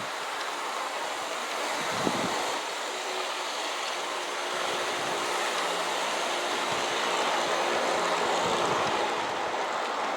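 G-scale model coal train of plastic hopper cars running steadily along the track, pulled by Aristo-Craft locomotives: a continuous rolling noise of wheels on rail with a faint motor hum, and a single click about two seconds in.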